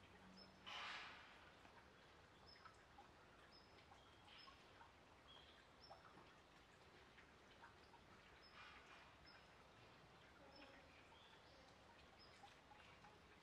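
Faint outdoor ambience with small birds chirping now and then in short high notes, and one brief louder rustling noise about a second in.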